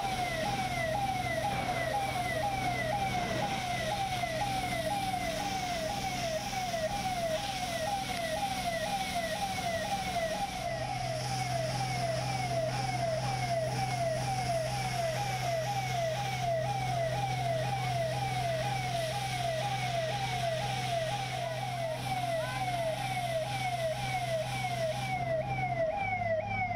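Electronic siren sounding a fast, even, repeating yelp, each sweep falling in pitch, about two a second, over a steady low hum.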